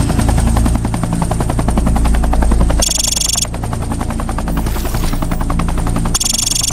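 Intro soundtrack sound design: a rapid, even chatter of pulses over a steady deep drone, with two brief bright electronic tones about three and six seconds in.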